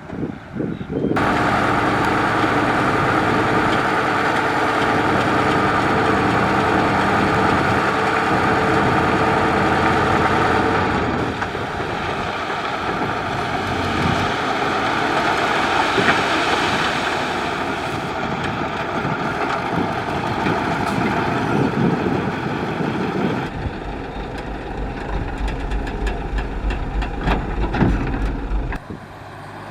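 Heavy diesel construction machinery running, a dump truck or road equipment engine, steady and loud. The sound changes abruptly about a second in, again around eleven seconds, and at about twenty-three seconds, where a deep low throbbing comes in that stops shortly before the end.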